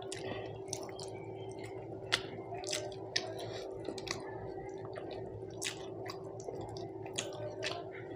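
Close-up wet eating sounds of a person chewing and smacking a mouthful of rice with dal and curry, irregular squelchy clicks several times a second, over a steady low background hum.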